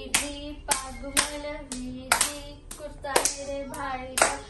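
Children singing a chant to steady rhythmic handclaps, about two claps a second.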